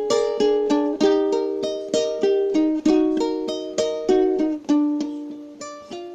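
Solo plucked-string instrumental music: a melody of single notes, about three a second, each struck sharply and left ringing as it fades.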